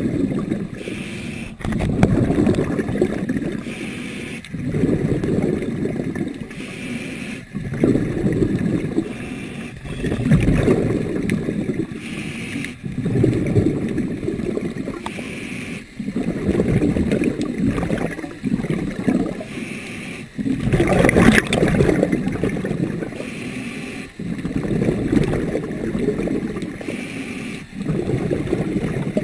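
Underwater water noise against an action camera's waterproof housing, swelling and fading in low rushing surges every two to three seconds as the diver swims. One surge about two-thirds of the way through is louder and sharper than the rest.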